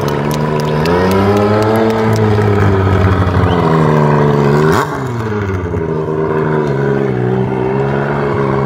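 Stunt motorcycle engine held at high revs through tricks, its pitch wavering up and down. About five seconds in the pitch swings down sharply and the level dips slightly, then the engine settles back to a steady high rev.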